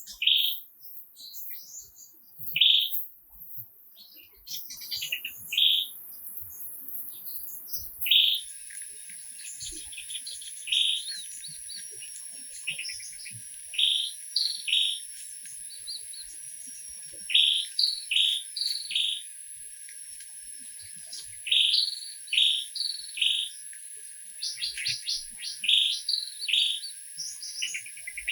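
Birds chirping in short notes, often two or three in quick succession, repeating throughout. A steady high hiss sits behind the calls from about eight seconds in.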